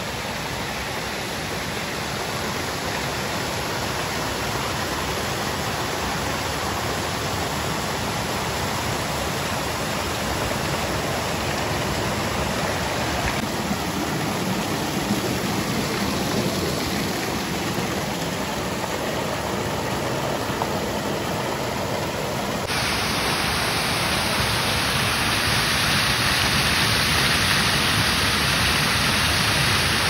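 Waterfall rushing: a loud, steady roar of falling water. About two-thirds of the way through it turns brighter and a little louder.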